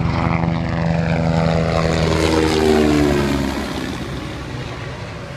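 Superbike racing motorcycle passing at full racing speed, its engine note falling in pitch as it goes by and then fading away down the road.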